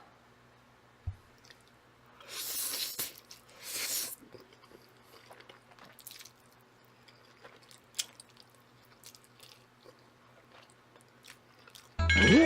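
A person slurping instant jjajang noodles in two loud pulls, then chewing quietly with small wet mouth clicks. Music comes in right at the end.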